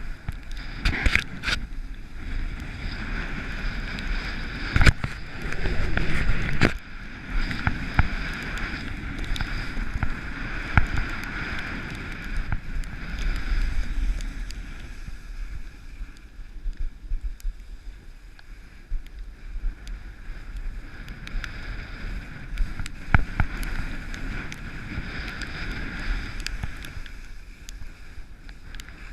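Continuous hiss and scrape of a rider sliding downhill over snow, with wind rumbling on the microphone and a few sharp knocks or clatters along the way.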